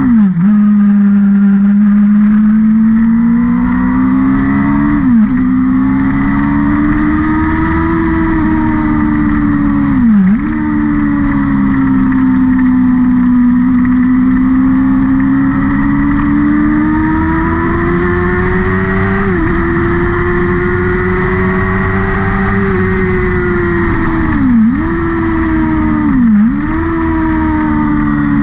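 Engine of a vehicle lapping a race circuit, held at high revs. Its note rises and falls through the corners, and several times it drops sharply and picks straight back up, as at gear changes or lifting off the throttle.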